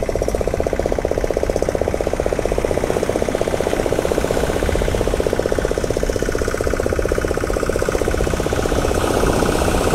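Outboard motor of a small fishing boat idling steadily, a fast, even chugging.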